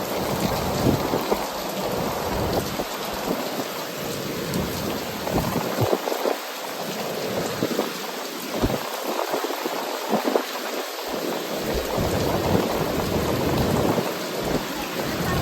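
Ocean surf breaking and washing up a beach: a continuous rushing hiss, with a low rumble that swells and fades.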